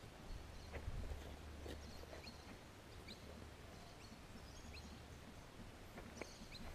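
Faint outdoor ambience: a steady low rumble with short, high bird chirps now and then.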